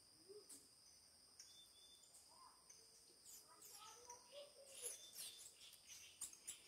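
Near silence outdoors: faint steady high-pitched insect trilling, with a few faint bird chirps in the second half.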